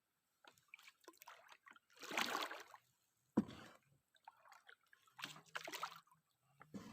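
Water splashing and sloshing at a small boat in a few short bursts, with one sharp knock about three and a half seconds in.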